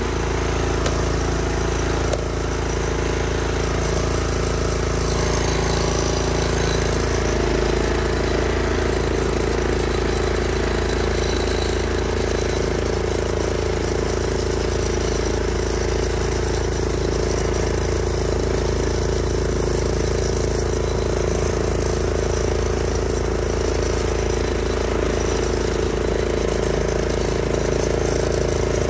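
Cub Cadet 760 ES 33-inch walk-behind mower's engine running steadily under load while cutting grass, its note shifting slightly about seven seconds in.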